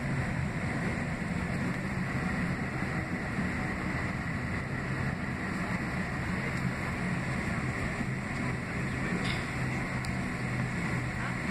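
Cabin noise of a Boeing 767-300ER taxiing, heard from inside the cabin: its GE CF6-80C2B6 turbofans at low taxi power make a steady hum with a thin high whine over it.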